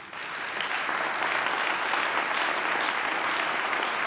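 A large audience applauding. The clapping starts at once, swells over the first second and then holds steady.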